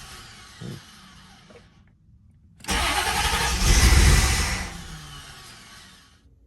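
C4 Corvette's V8 being cranked and failing to start: the end of one attempt dies away at first, then a second attempt starts abruptly under three seconds in, runs loud for about two seconds and fades out. The engine won't catch because air is leaking past a loosely seated cold start injector.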